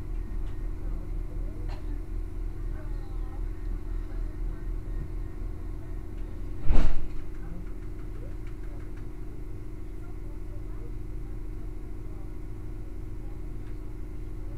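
Steady low engine hum, like an idling vehicle engine, with one loud, short thump about seven seconds in.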